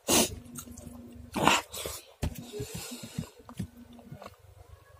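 Close-up eating sounds of a man chewing a mouthful of dal and rice eaten by hand: irregular mouth smacks and clicks, with two loud noisy bursts, one at the very start and one about a second and a half in.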